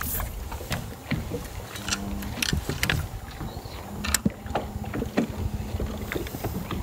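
Water lapping and knocking against a small fishing boat's hull, with scattered sharp clicks and a low steady hum that comes in twice, the longer from about four to six seconds in.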